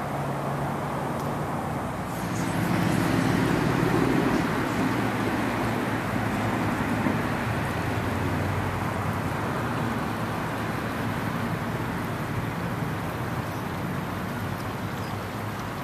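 Road traffic noise: a motor vehicle's engine hum over a steady rumble, growing louder about two seconds in and slowly fading.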